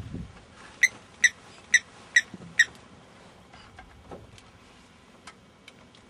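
Blacksmith lapwing giving five sharp, metallic 'tink' calls about half a second apart, then a few fainter ticks.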